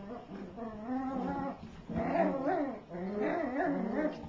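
Eight-week-old cairn terrier puppies growling at each other in a tug-of-war over a toy: long wavering growls in three stretches with short breaks between.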